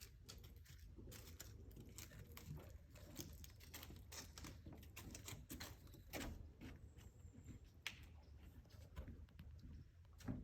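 Near silence: faint, scattered clicks and rustles over a low steady hum, with one sharper click at the very end.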